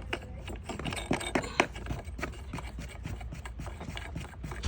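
Replacement vacuum breaker valve being tightened back onto a faucet by its threads: irregular scraping and clicking, busiest in the first couple of seconds.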